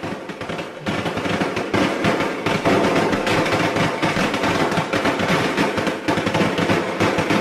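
A long hanging string of red firecrackers going off in a dense, rapid, continuous rattle of bangs, getting louder about a second in.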